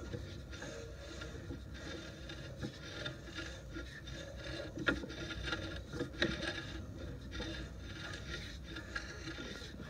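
Sewer inspection camera's push cable scraping and rubbing as it is fed down the main sewer line, with a couple of sharper knocks about five and six seconds in.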